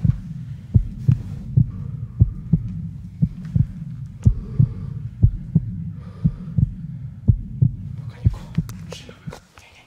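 Heartbeat sound effect: pairs of low thumps, about one pair a second, over a steady low hum, fading out near the end.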